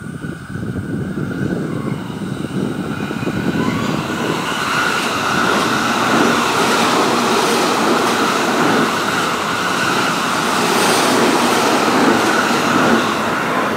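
JR East E531-series electric multiple unit running past at speed: wheel and rail noise grows louder over the first several seconds as it approaches, then stays loud while its cars go by.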